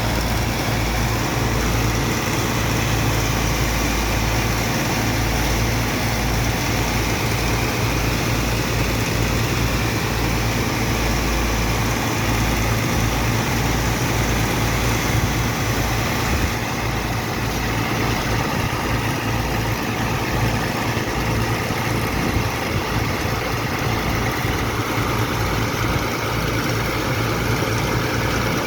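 Sand dredger's diesel engine and pump running steadily, a constant low drone under a broad rushing noise that shifts slightly about two-thirds of the way through.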